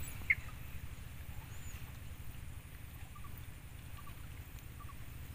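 A few short bird chirps over a steady low rumble: one clear chirp just after the start, then several fainter ones later on.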